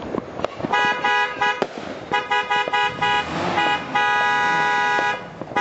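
Car horn honking in a run of toots: a blast about a second long near the start, a quick string of short beeps, then a held blast of more than a second near the end.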